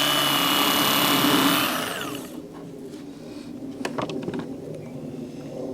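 Electric fillet knife running with a steady motor whine as it cuts out a fish's rib cage, then switched off and winding down about two seconds in. A few faint clicks follow.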